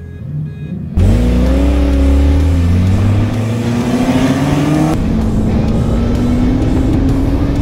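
C4 Corvette V8 and Nissan 240SX launching from a standing start in a drag-race acceleration test. About a second in, the engines come in loud and rev up hard; the note drops back at a gear change and then climbs steadily as the cars pull away.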